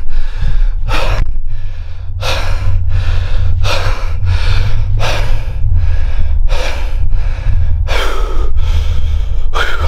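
A man panting hard and fast close to the microphone, about two breaths a second, out of breath like crazy, over a steady low rumble.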